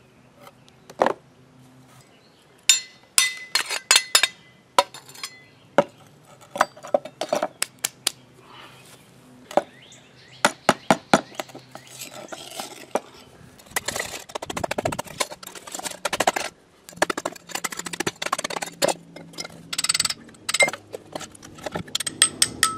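Small hammer tapping and knocking on a raw cast-aluminum engine crankcase held in locking pliers, to break loose the baked sand core inside: irregular light metallic clinks and knocks, some ringing briefly.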